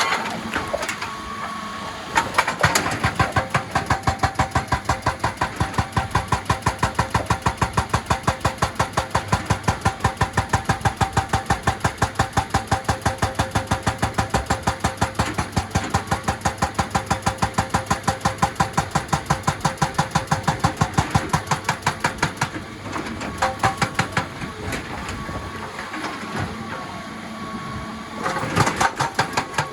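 Excavator-mounted hydraulic rock breaker hammering stone in a fast, even run of blows, about three to four a second, over the excavator's running engine. The hammering starts about two seconds in, stops a few seconds before the end, and comes back briefly near the end.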